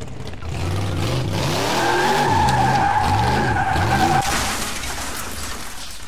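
Car tyres screeching with the engine revving up and down several times, starting about half a second in; the screech cuts off about four seconds in and the sound trails away.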